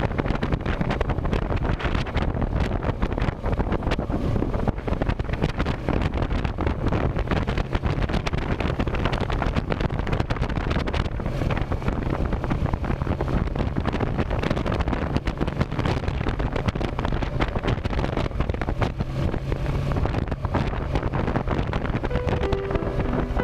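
Heavy wind buffeting the microphone over a motorcycle engine running steadily while riding. Music comes in near the end.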